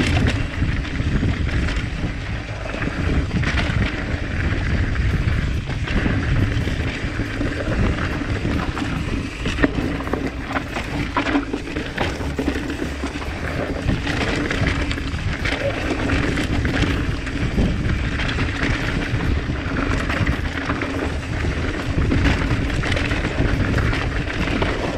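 Wind buffeting an action camera's microphone while a mountain bike rolls fast down a dirt and rock singletrack. Knobby tyres are running over the ground and the bike rattles and clacks over bumps throughout.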